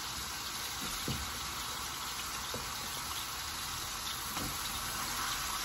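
Sliced mushrooms sizzling steadily in canola oil in a stainless steel pan, with a few light scrapes of a spatula stirring them.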